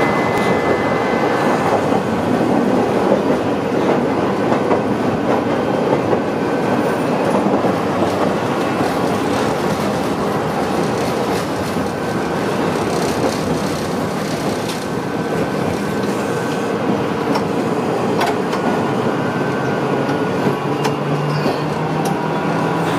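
Tosaden Kōtsū tram running along its track, heard from inside the car: a steady rumble of wheels and running gear with the clickety-clack of wheels over the rail joints.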